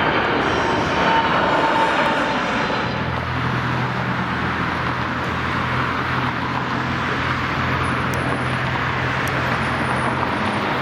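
A jet aircraft passes overhead; its roar and high whine fade over the first couple of seconds. A steady low engine hum then sits under the outdoor noise.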